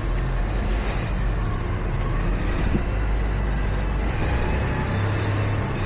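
Engine idling steadily: a low, even rumble with a steady hum.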